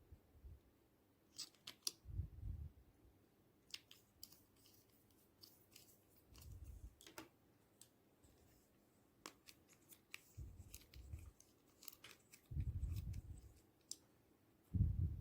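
Slime being handled and mixed by hand: irregular sticky clicks and snaps, with several short dull low thuds, the longest about two-thirds of the way in.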